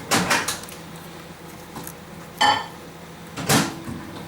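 Small hard clicks and clinks of tools or small metal parts being handled and set down on a workbench: a quick pair at the start, one about two and a half seconds in with a brief ring, and one a second later.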